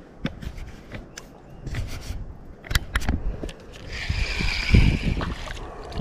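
Scattered knocks and clicks from handling a freshly caught crappie and tackle in a small fishing boat, with a short hiss about four seconds in.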